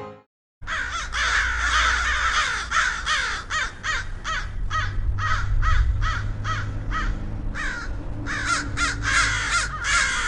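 Crows cawing over and over, harsh falling caws about two a second over a low rumble; the effect starts about half a second in.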